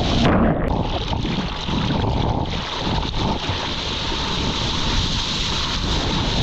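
Sea water splashing and rushing around a surfer's GoPro, with wind buffeting the camera's microphone; a loud burst of spray hits the camera about a quarter of a second in, then small breaking waves wash past.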